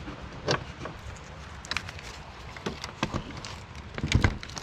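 Handling noise as electrical cables and plug connectors are worked by hand: irregular small clicks and knocks, with a louder knock about four seconds in.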